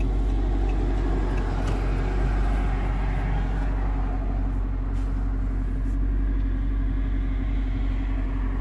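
2014 Dodge Charger SRT8's 6.4-litre HEMI V8 through a Corsa exhaust, droning steadily at a light cruise, heard from inside the cabin along with tyre and road noise.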